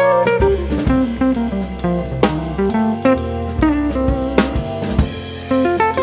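Background music: a drum kit keeping a steady beat under a bass line and a stepping melody.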